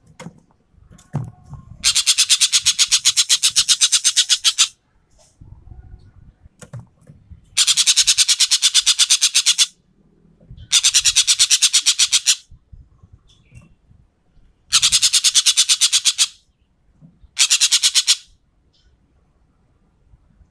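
An ekek keling, the Sumatran bird, giving its rapid rattling 'tembakan' call in five bursts of fast, dry, high-pitched notes, each burst one to three seconds long, with faint low knocks in the gaps between.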